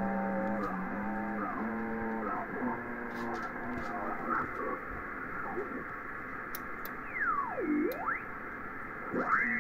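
Upper-sideband receiver audio from the RS-44 satellite's 435 MHz downlink on a Yaesu FT-847 transceiver: narrow, hiss-filled audio with off-tune sideband voices from other stations. Near the end, whistling tones sweep down and back up as the tuning knob is turned across the passband.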